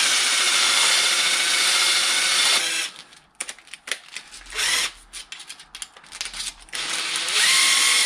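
Makita cordless drill-driver spinning a brake caliper guide pin inside emery cloth to clean and polish it. There is a long steady whirr of about two and a half seconds, a short burst around the middle, and another spin-up near the end, with small clicks and scrapes between the runs.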